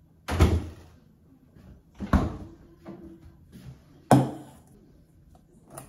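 Three knocks about two seconds apart. The first is a heavy, low thud of a refrigerator door shutting. The last is a steel bowl with a strainer set down on a counter.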